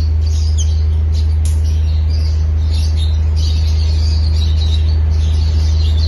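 Caged lovebirds chirping, many short high twitters scattered throughout, over a loud steady low hum.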